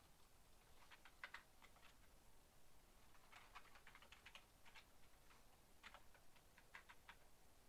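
Faint computer keyboard typing: short runs of key clicks about a second in, again in the middle, and near the end.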